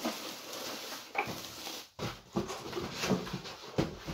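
Plastic bag wrapping on a PC tower case crinkling and rustling, with irregular handling knocks as the case and its packaging are moved about.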